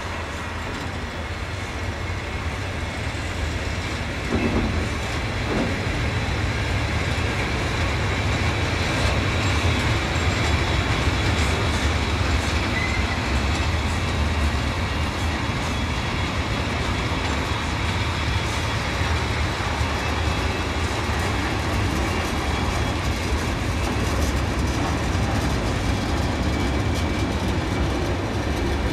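Freight train's wagons rolling past close by: a steady rumble of steel wheels on the rails, growing a little louder a few seconds in.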